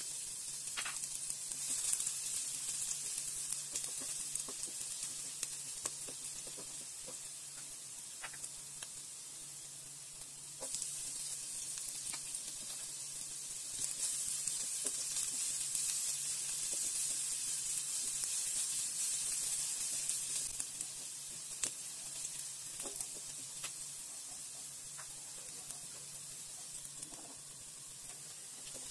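Garlic, ginger and chopped onion sizzling in hot oil in a nonstick wok, with small scrapes and taps of a spatula as they are stirred. The sizzle grows louder about ten seconds in and again a few seconds later, then eases off.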